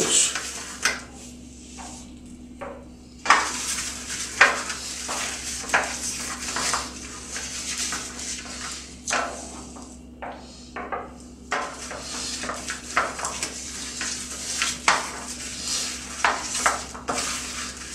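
Gloved fingers rubbing butter around the inside of an aluminium tray: an uneven swishing rub on the metal, broken by frequent short scrapes and clatters of the tray.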